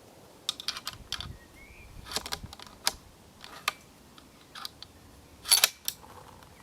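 Clicks and metallic clacks of a bolt-action 6.5x55 rifle and its cartridges being handled as it is made ready for another shot, with a dozen or so sharp ticks spread out and the loudest clack about five and a half seconds in.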